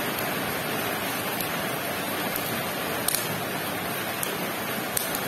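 Steady, even hiss, with a few short, light crackles of bubble wrap and tape as a package is peeled open by hand.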